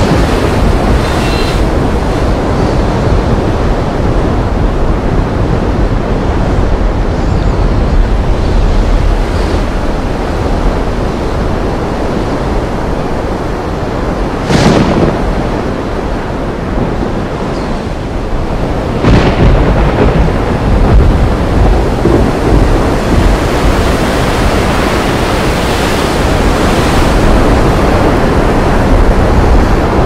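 Fast, rain-swollen river rushing, a loud, steady roar of water with a deep rumble. Two sharper surges about halfway through.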